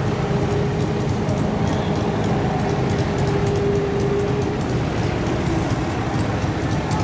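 Off-road vehicle engines running steadily at low speed as a tracked 8x8 amphibious ATV creeps forward close by. A steady low drone carries a faint whine that stops about four and a half seconds in.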